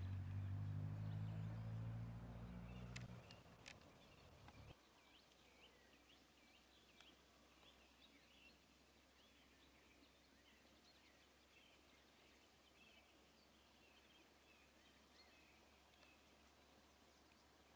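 Faint birdsong: many small birds chirping and twittering. For the first three seconds a low steady hum is heard before it fades out, with a couple of sharp clicks near its end.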